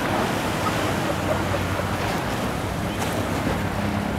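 Wind buffeting the microphone over the steady wash of choppy water, with a faint low engine hum underneath.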